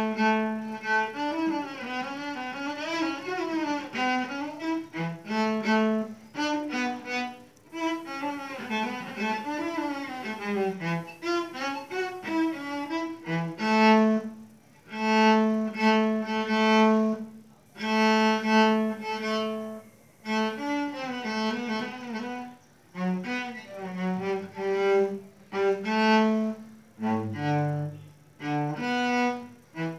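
Solo cello played with the bow in a warm-up: a melodic line of long held notes, some wavering with vibrato, mixed with quicker runs, dipping to low notes near the end.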